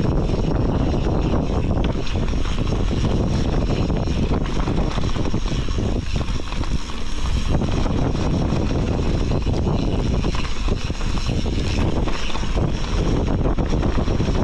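Steady rumble of wind buffeting the microphone of a camera on a mountain bike riding down a dirt trail, mixed with the rush of the tyres over the ground.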